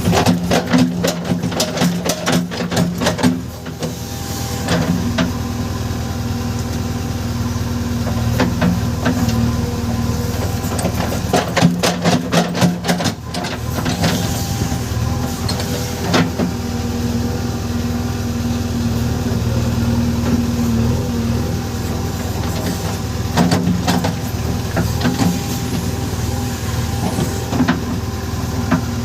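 JCB 3DX backhoe loader's diesel engine running steadily under work. Three spells of rapid clattering knocks come at the start, midway and near the end.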